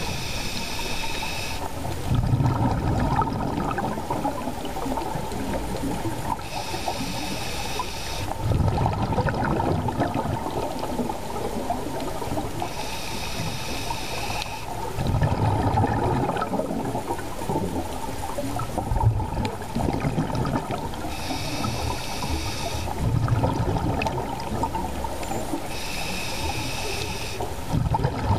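A scuba diver breathing through a regulator underwater, about five breaths. Each breath is a hissing inhale through the demand valve lasting under two seconds, followed by a rumbling burst of exhaled bubbles.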